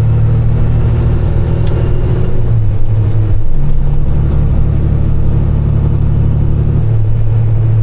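Kenworth semi truck's diesel engine running under way, a loud steady low drone whose note changes about three and a half seconds in and again near seven seconds.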